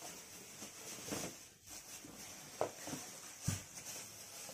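A few soft knocks and light rustles of things being handled, over a steady high hiss.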